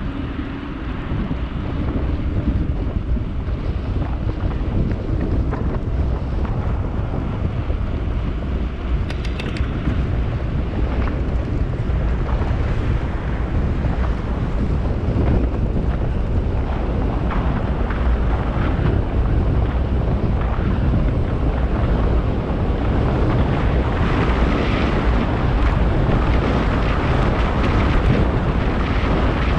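Wind blowing on the microphone: a steady low noise that grows a little louder over the first couple of seconds.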